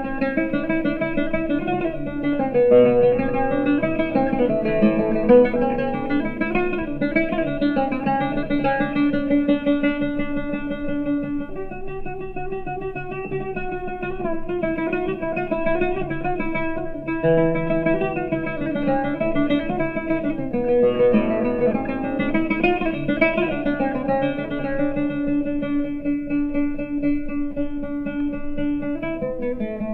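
Solo oud improvisation (taqsim) in maqam Rast, the strings plucked with a plectrum, with melodic runs and stretches of fast repeated picking on held notes.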